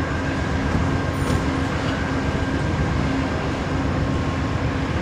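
Amtrak passenger train standing at a station: a steady mechanical hum with a few constant tones over it.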